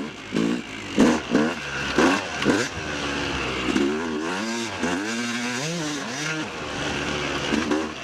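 250cc two-stroke motocross bike engine being ridden hard: a few quick throttle blips in the first couple of seconds, then revving up and down in longer swells as the rider works the throttle.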